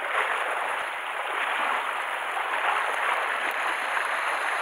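Sea surf washing and splashing against the rocks at the water's edge, a steady wash of water.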